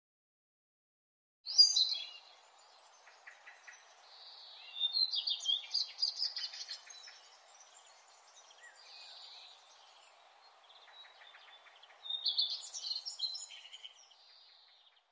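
Birds chirping and trilling in quick, overlapping calls over a faint steady background, a nature ambience laid under the title card. It starts about a second and a half in with a loud call, gets busiest in the middle and again near the end.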